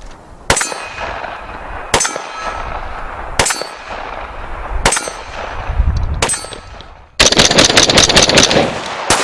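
Serbu BFG-50A semi-automatic .50 BMG rifle firing five single shots about a second and a half apart, each a sharp crack with a ringing tail. About seven seconds in comes a fast string of many sharp cracks lasting about two seconds.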